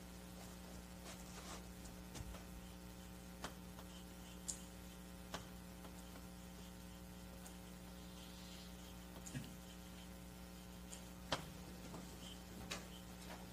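Low, steady electrical mains hum with a few faint, isolated clicks scattered through it: quiet room tone.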